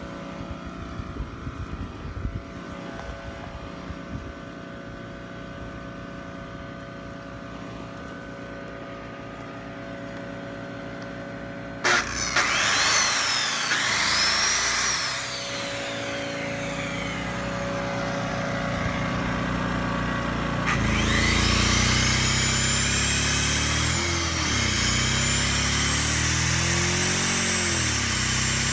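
A Powerhorse 2000-watt inverter generator's engine runs steadily. About twelve seconds in, a corded circular saw plugged into it starts with a click and a rising whine, then winds down. It spins up again about twenty-one seconds in and keeps running, while the generator's engine note rises and dips under the saw's load, which it handles.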